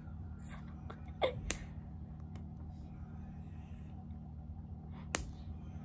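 Faint scattered crinkles and clicks of hands working at a hard-to-open plastic toy package, over a steady low hum. Sharper clicks about a second and a half in and near the end.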